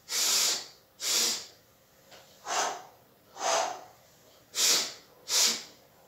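A man's forceful breaths, six of them at about one a second and loosely paired, in a breathing exercise of two breaths in followed by two breaths blown out.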